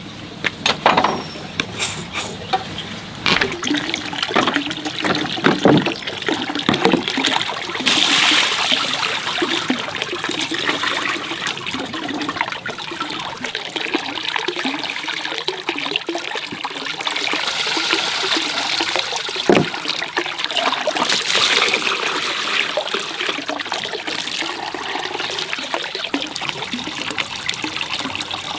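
Running water splashing and trickling, with scattered irregular knocks and clicks, most of them in the first few seconds.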